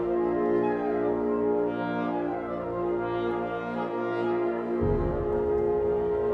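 A wind ensemble holding long sustained chords, their pitches drawn from the overtone series on B-flat. The lowest notes drop out for under a second and come back in about three-quarters of the way through.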